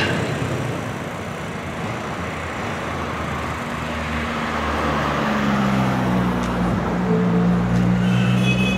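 Motorcycle engine running, its low engine note coming up and growing louder over the second half over a steady road noise.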